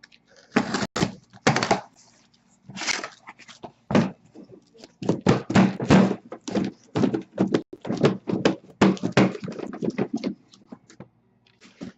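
Trading-card packaging being handled and opened: a quick series of crinkles, rips and knocks, thickest in the middle of the stretch.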